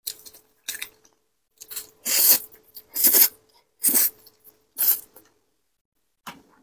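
A person slurping noodles in black bean sauce close to the microphone. There are four loud, airy slurps about a second apart in the middle, with fainter mouth sounds before and after.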